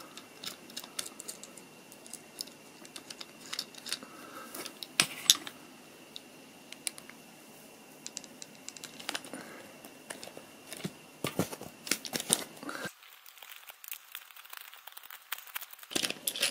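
Scattered small clicks, taps and scrapes of a screwdriver and metal parts being handled as the trigger block of an SMK QB78DL air rifle is unscrewed and lifted off the action.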